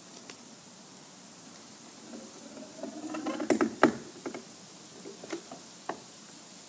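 Futuro House's fibreglass hatch door, with its stairs built in, swinging up and shutting. A creaking scrape gives way to two sharp knocks as it closes and latches, followed by a few lighter clicks.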